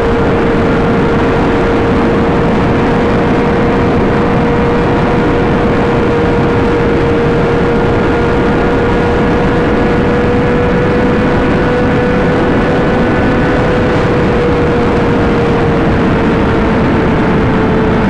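Inline-four supersport motorcycle engine held at high, steady revs at highway speed, its pitch creeping up slightly and easing back near the end, under a heavy rush of wind on the microphone.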